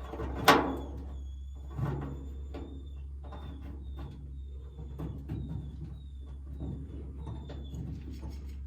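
A sharp metal knock about half a second in, then small clicks and scrapes of a bolt being worked into a freshly drilled hole in a truck bed. The bolt will not thread because the hole is slightly too small.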